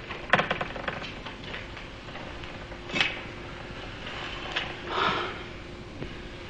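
A few scattered clicks and soft knocks: a quick cluster of clicks just after the start, one sharp click about three seconds in, and a short softer rustle around five seconds, over a faint steady hum.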